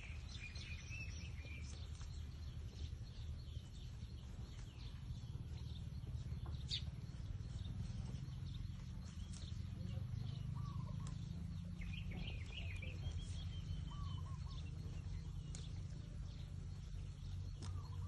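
Outdoor ambience: a steady low rumble with scattered short bird chirps, a few near the start and a cluster about twelve seconds in.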